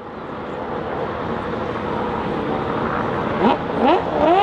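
Racing car engine approaching and growing steadily louder, with two quick revs rising sharply in pitch near the end.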